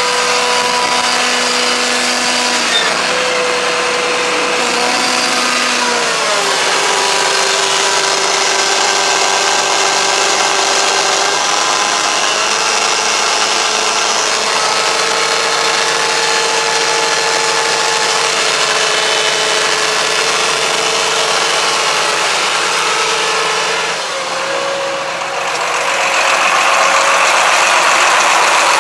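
John Deere 8320 tractor's diesel engine running, with a steady hum whose pitch steps down about six seconds in and back up about twelve seconds in. Near the end the sound turns louder and hissier.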